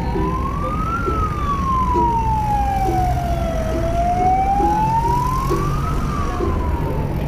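An emergency vehicle's siren wailing. Its pitch rises for about a second, falls slowly for nearly three, rises again for about two, and is falling once more near the end. It sounds over a steady low rumble of traffic.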